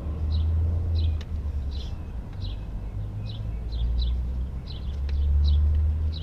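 A low, uneven rumble that swells and fades, under a bird repeating short high chirps about twice a second. A few light clicks come from the camp chair's frame as its poles are fitted together.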